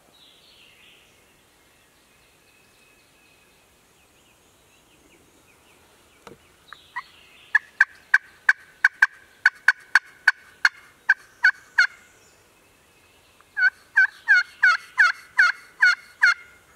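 Turkey yelping: a run of loud, sharp yelps, about three a second, begins around seven seconds in, and after a short pause a quicker second run comes near the end.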